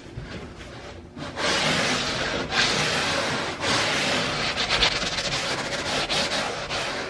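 Hand sanding of an ebony fingerboard's freshly sawn edge with a small handmade wooden sanding block, pushed back and forth in continuous strokes from about a second in, truing the edge straight.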